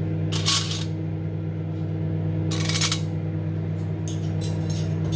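Microwave oven running with a steady hum while it heats food. Two short clinks, about half a second and two and a half seconds in.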